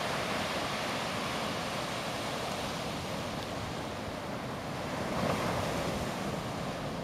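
Ocean surf: waves breaking and washing in as a steady rush, with some wind on the microphone. The rush swells a little about five seconds in.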